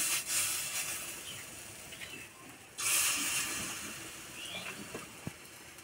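Spinach and gram-flour batter sizzling as it is dropped into hot mustard oil in a kadai. One burst of sizzle starts at once, a second begins about three seconds in as the next fritter goes in, and each fades as it settles.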